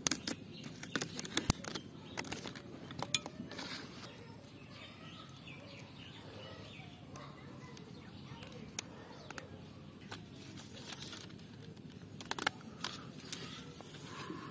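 Scissors snipping through a hard plastic mesh basket, a run of sharp clicks in the first few seconds and another cluster near the end, with faint outdoor background between.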